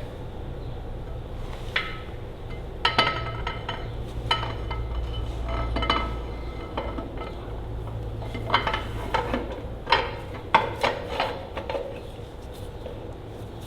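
Scattered metallic clinks and knocks of tools and steel parts being handled as a Ferguson TEA20 PTO shaft housing is fitted back onto the tractor, over a steady low hum.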